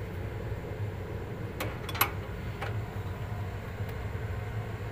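Steady low mechanical hum with a few sharp metallic clicks near the middle, as a spanner goes onto the compressor's mounting nuts.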